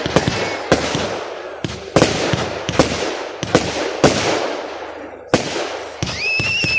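Fireworks display: a rapid string of sharp aerial bangs, each trailing off in a fading crackle. A steady high whistle starts near the end.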